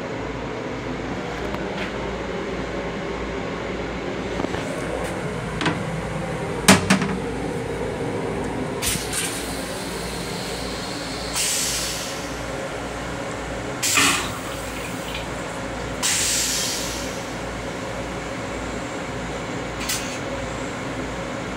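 M7 railcar toilet flushing: a sharp click about a third of the way in, then water rinsing the stainless-steel bowl in three short hissing spurts, over the steady hum of the rail car.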